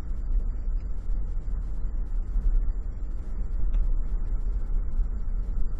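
Steady low rumble of car engine and road noise heard inside the cabin while driving, with faint crackling ticks from the camcorder's loosely refitted microphone.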